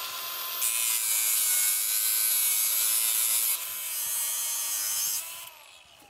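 Milwaukee M18 FUEL cordless angle grinder running with a steady whine and grinding into steel, loudest for the first three seconds or so, then winding down with a falling whine about five seconds in.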